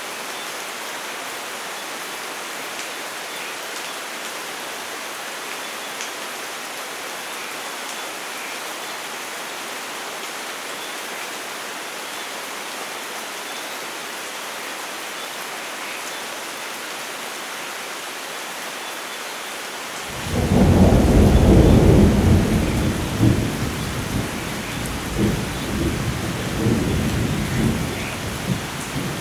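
Steady rainfall, then about twenty seconds in a loud clap of thunder breaks in and rolls on in several swelling rumbles under the rain.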